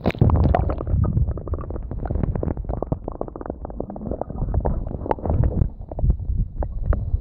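Camera microphone submerged in a shallow creek, giving a muffled rumble of moving water with many small clicks and knocks, as stones and gravel shift on the creek bed. It starts suddenly as the camera goes under.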